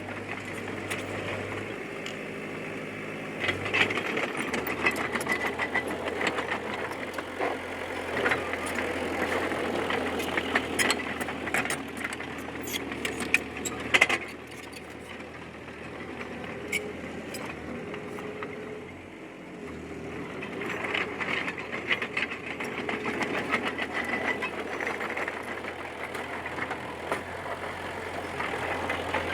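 D20P bulldozer's diesel engine running under working load, its note shifting as the load changes, with scattered metal clanks and rattles and one sharp clank about fourteen seconds in.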